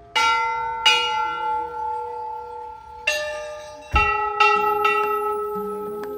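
Hindu temple bells rung by hand, about six strikes on bells of different pitches: two close together at the start, then four more after about three seconds. Each strike rings on and slowly fades under the next.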